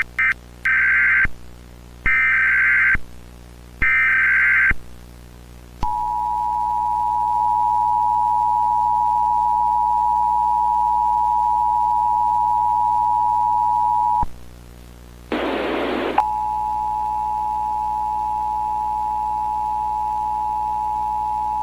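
Emergency Alert System opening in a mock alert: a blip, then three harsh buzzing bursts of SAME digital header data. Then comes the steady two-tone attention signal (853 and 960 Hz), held for about eight seconds. A short burst of static breaks in about fifteen seconds in, then the two-tone attention signal sounds again.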